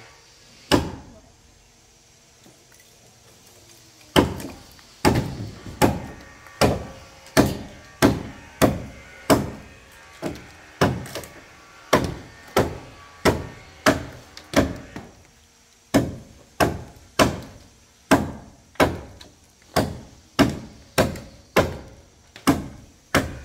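Repeated blows of a tool on wood: a single blow about a second in, then from about four seconds a steady run of blows, roughly three every two seconds, with a short break around fifteen seconds.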